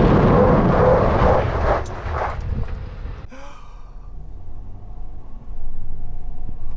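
Wind buffeting and tyre roar at a camera mounted low by the spinning front wheel of a 2021 Ford F-250 Tremor at road speed, dying away about two and a half seconds in. It is followed by a quieter steady hum heard inside the cab, which grows louder again about five and a half seconds in.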